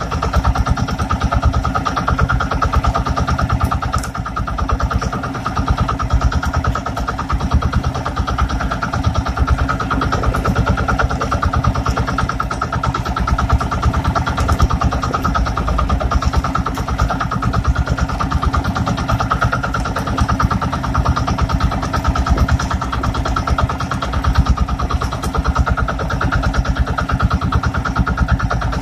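Small inboard engine of an outrigger fishing boat running steadily, a loud fast even drone that does not change.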